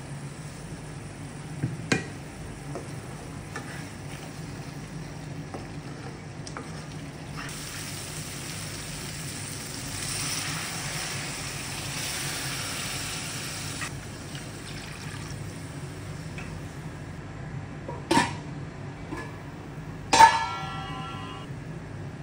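Liquid poured from a mixer jar into a hot pan of curry base, sizzling and splashing for several seconds midway, over a steady low hum. Two sharp knocks near the end, the second a ringing clink of a jar or plate against the pan.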